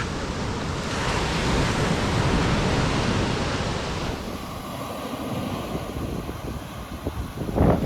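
Surf washing onto the beach, with strong wind buffeting the microphone, sharper gusts near the end.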